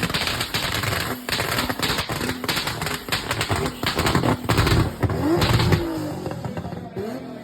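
Car audio system blasting a rapid, crackling clatter like automatic gunfire, loud throughout and easing off near the end.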